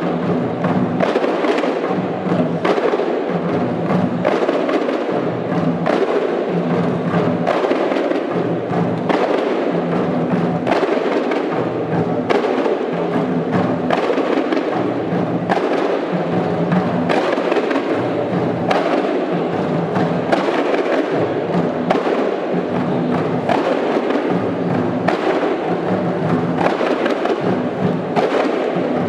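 A kompang ensemble, many Malay hand-struck frame drums, played together in a steady, driving rhythm of dense repeated strokes.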